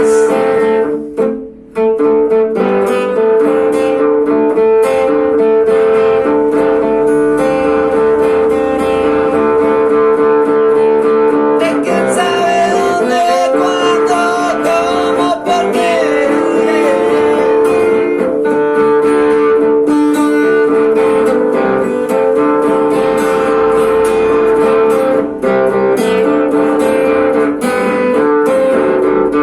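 Tuareg-style guitar music: plucked and strummed guitar over a held drone note, with a wavering melodic line about 12 seconds in. The music drops away briefly about a second in.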